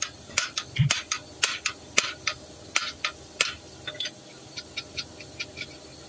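Hand ratchet and socket clicking and clinking irregularly, a few sharp metal clicks a second, as the ratchet is worked back and forth on wheel hub bolts.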